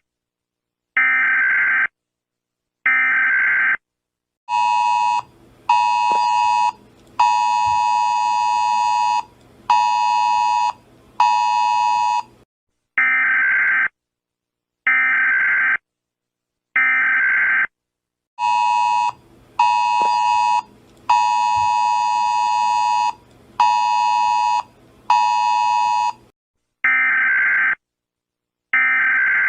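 Electronic emergency-alert tones on a simulated Emergency Alert System broadcast. Steady single-pitch beeps about a second long, one every two seconds, alternate twice with a brighter, buzzier two-tone signal. That signal pulses short, short, long, short, short.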